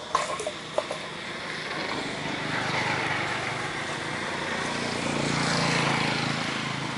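A motor vehicle passing, its steady rush swelling to a peak near the end and easing off, after a few sharp clicks in the first second.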